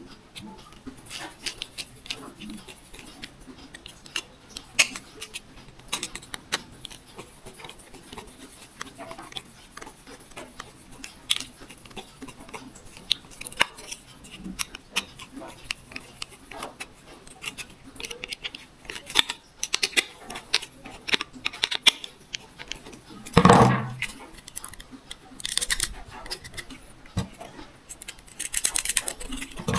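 Scattered clicks, taps and scrapes of small tools and plastic-and-metal parts being handled as a camera mount is screwed onto a helmet, with one louder knock about three-quarters of the way through.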